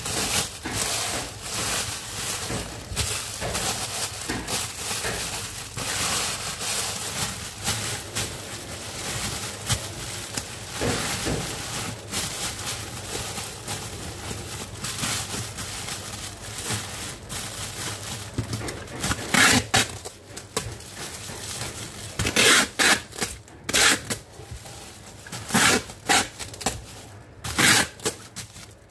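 Clear cellophane wrap crinkling and rustling as it is gathered and smoothed by hand over a domed tray. In the last ten seconds it comes in louder, sharper crackling bursts.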